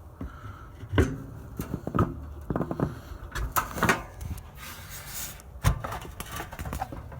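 Irregular knocks, clicks and a scrape as a box fan blade is worked onto its motor shaft by hand, with no motor running.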